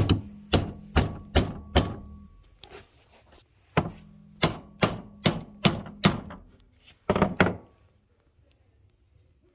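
A hammer striking a steel tractor part over and over, about two or three blows a second in two runs with a short pause between, each blow leaving a faint metallic ring; the blows stop about eight seconds in.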